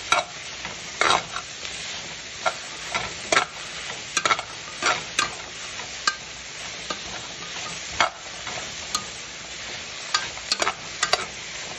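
Sliced carrots, yellow squash and zucchini stir-frying in hot oil in a pan: a steady sizzle, with irregular scrapes and taps of a spoon stirring against the pan about once a second.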